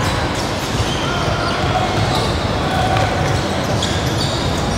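Basketball game in progress: ball bouncing and sneakers squeaking on the court, with spectators talking in the background.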